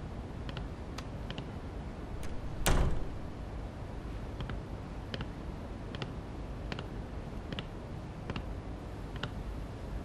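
A door shuts with a thud about three seconds in, then hard-soled shoes step across a wooden floor, a sharp step about every three-quarters of a second, over a low steady room hum.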